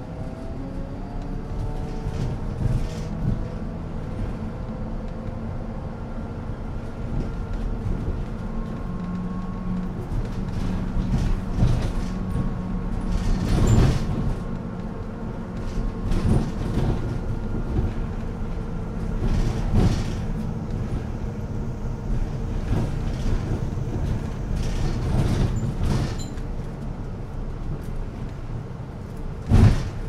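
Small city bus riding along, heard from inside: a steady low drive hum with some gliding whine, and scattered knocks and rattles, the loudest one shortly before the end.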